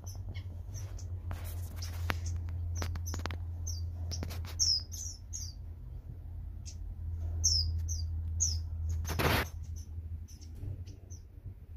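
Short high-pitched bird chirps repeated in irregular runs, over a steady low hum and a few faint clicks. A louder brief rustle comes about nine seconds in.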